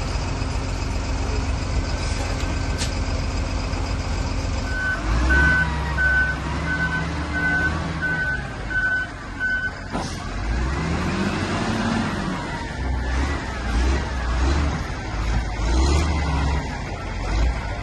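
A heavy vehicle's engine running and revving, with a reversing alarm beeping evenly for about five seconds in the middle.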